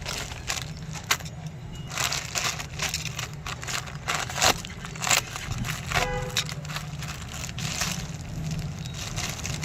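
Plastic packaging crinkling and rustling in irregular bursts of crackles as products are unwrapped, over a steady low hum.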